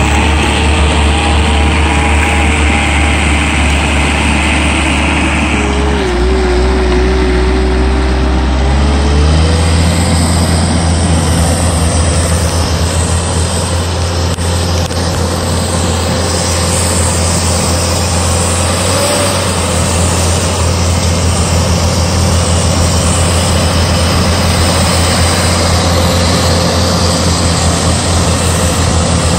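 Diesel engine of a Wacker Neuson WL32 mini loader running steadily under load while it drives a front-mounted Pronovost snow blower, with a thin wavering whine over it at first. About nine seconds in, the engine note strengthens and holds steady.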